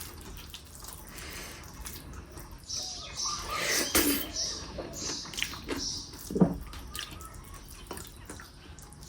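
Wet, close-up eating sounds: chewing and mouth smacks with scattered small clicks, as dhido with lentil dal is eaten by hand.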